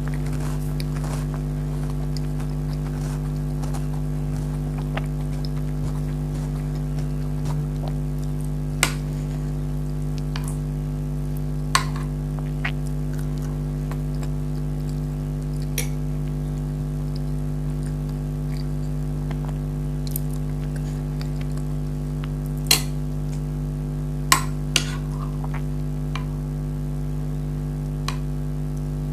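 Cutlery clinking against dishes during eating: a handful of short, sharp clinks spread out through the stretch, over a steady low hum.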